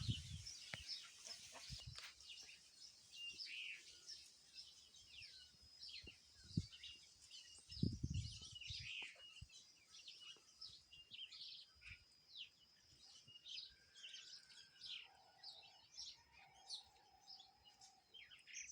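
Small songbirds chirping and twittering in many quick, high calls, over a thin steady high tone. Chickens call faintly, with a drawn-out call near the end, and there are a couple of low bumps about seven and eight seconds in.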